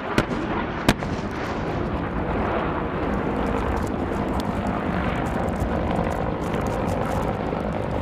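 AH-6 Little Bird attack helicopter on a gun run: two sharp shots in the first second, then a dense, steady din of rotor noise and rapid gunfire.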